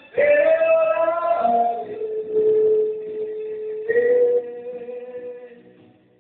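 A man singing long held notes. The phrase steps down to a lower sustained note about two seconds in, and the voice fades away near the end.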